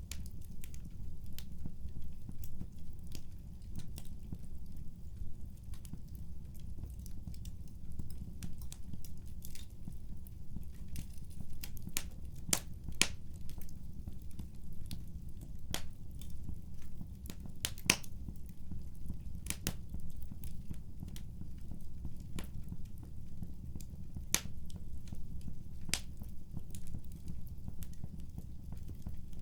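Wood fire crackling: irregular sharp pops and snaps over a steady low rumble, with a few louder pops.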